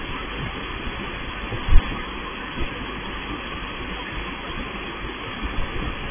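Touchless automatic car wash bay with a steady machine rumble and rushing noise. Irregular low knocks run through it, and there is one sharp thump about two seconds in.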